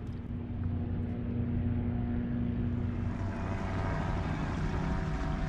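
Steady engine drone, its pitch shifting and thickening about three seconds in.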